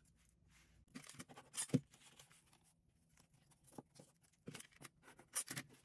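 Faint, scattered clicks, scrapes and rustles of a plastic corner-trimmer guide being set against the bookcloth corners of a book case on a cutting mat as the corners of the turn-ins are trimmed. The sharpest clicks come about a second and a half in and near the end.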